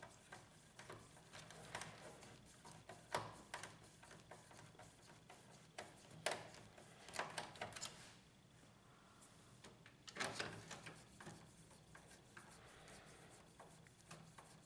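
Faint clicks and short scraping bursts of a screwdriver driving two screws into a laser printer's plastic casing, with quiet pauses between.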